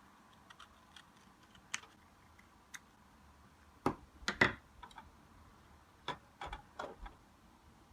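Keys on a mechanical keyboard being pressed in irregular short bursts, sharp clicks and clacks. Faint scattered clicks come first, then a louder cluster about halfway through and another near the end.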